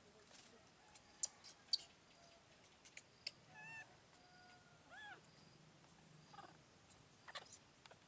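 Baby macaque giving scattered thin, high squeaks and a few short pitched coos, the loudest squeaks coming in a quick pair near the end.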